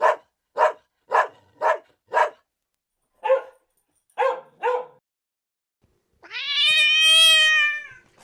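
Animal calls: eight short calls in quick succession, then one long drawn-out call that rises at its start and sags slightly at its end.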